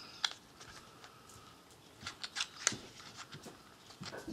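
Light clicks and taps of small vape tank parts being handled, with a quick run of several sharp clicks about two to three seconds in.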